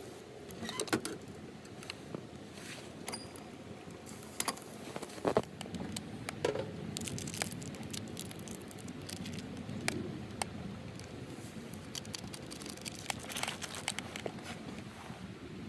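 Scattered light clicks and crackles around a small steel wood-burning tent stove, with a few sharper knocks and a low rustling underneath; a thicker run of clicks comes near the end.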